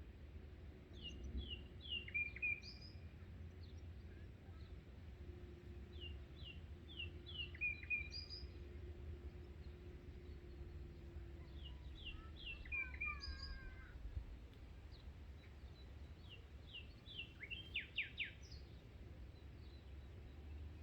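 A songbird repeating the same short song four times, about every five seconds: a quick run of chirps ending in a brief whistled note. A low steady rumble lies underneath.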